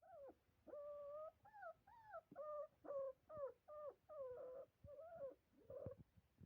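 Puppies whimpering: a faint run of about a dozen short, high whines, about two a second, many bending or falling in pitch at the end, stopping shortly before the end.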